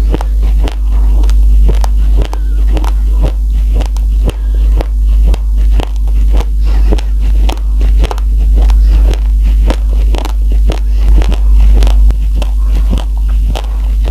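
Raw rice grains crunched between the teeth, close to the microphone: a dense run of sharp, irregular cracks, several a second, over a steady low hum.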